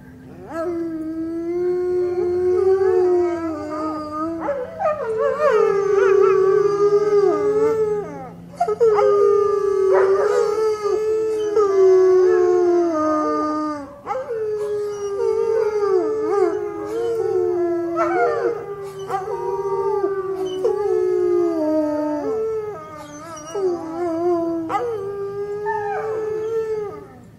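A dog howling and whining in long, wavering cries, one after another with short breaks between them.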